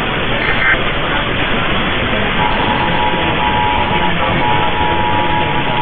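AM radio reception buried in heavy static: a short burst of Emergency Alert System header data near the start, then about two and a half seconds in the EAS two-tone attention signal (853 and 960 Hz) comes in and holds steady, dropping out briefly partway.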